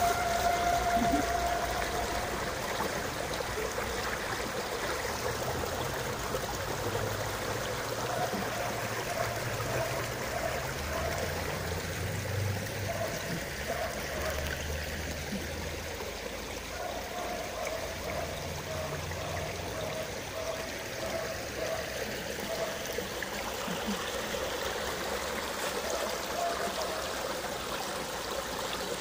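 Shallow river water rushing steadily out of concrete culvert pipes and over a stony bed.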